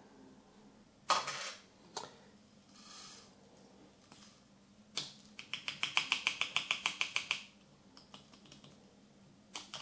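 Powder being shaken out of a cut-open 12-gauge shotgun cartridge case into a metal tin: a few light knocks, then about five seconds in a quick run of light rattling ticks lasting about two seconds.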